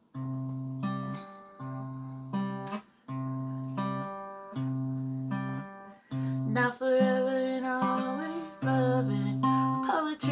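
Steel-string acoustic guitar played by hand: chords struck about every second and a half, each left to ring and fade. From about six seconds in, a woman's voice sings or hums along over the chords.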